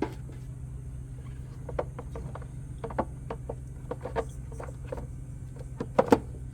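Light clicks and taps of an air filter element being handled and seated in a car's plastic air filter housing, with two louder knocks near the end.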